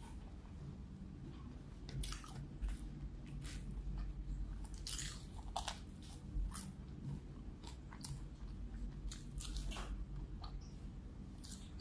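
Close-up biting and chewing of a fried chicken wing: irregular crisp crunches of the fried coating with wet chewing in between, thickest in the middle and again near the end.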